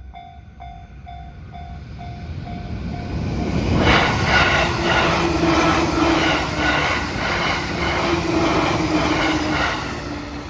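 Joban Line train passing close over a level crossing. Its wheels clack rhythmically over the rail joints and the sound builds to a loud peak that lasts several seconds. At the start the crossing's warning bell is dinging about three times a second, fading as the train arrives.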